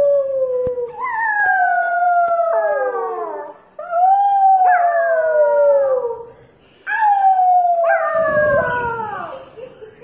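Puppy howling: a series of long, high howls, each sliding down in pitch, with short breaks between them.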